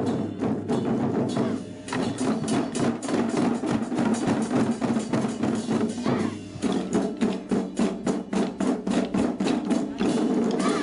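Taiko drum ensemble playing: many sticks striking barrel drums in a fast, driving rhythm, the drumming growing fuller about two-thirds of the way through.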